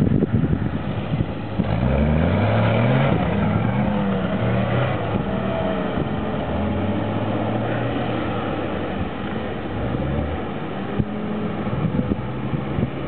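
Jeep CJ5 engine revving under load while off-roading through mud, its pitch rising about two seconds in, then easing off and picking up again a couple of times.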